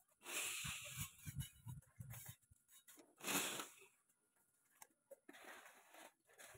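Cordless drill cutting a hole through a thin sheet-metal rain gutter in short bursts, three times, the loudest about three seconds in.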